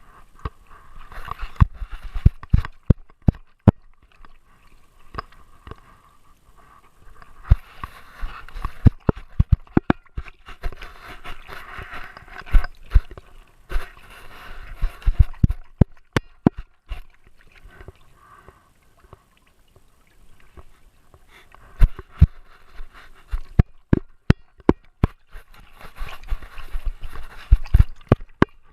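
Irregular thumps and knocks of a GoPro mount strapped to a Great Dane, jolted by the dog's steps and movements, with stretches of hissy noise between them.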